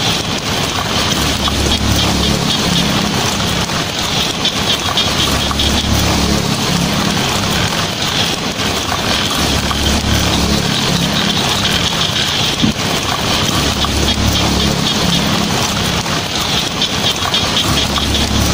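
Heavy rain drumming steadily on a tin roof, with a low rumble that swells and fades every few seconds.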